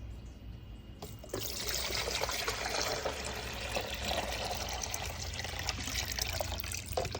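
Water being poured into the water reservoir of a Hamilton Beach programmable coffee maker, a steady splashing pour that starts about a second in.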